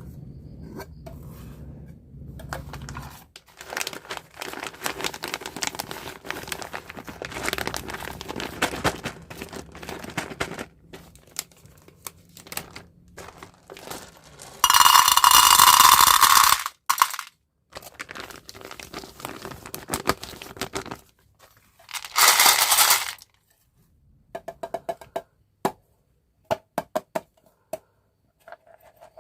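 Candy packaging crinkled and handled, with two loud bursts, the first about two seconds long and the second about one second, and a run of small sharp clicks of candy pieces near the end.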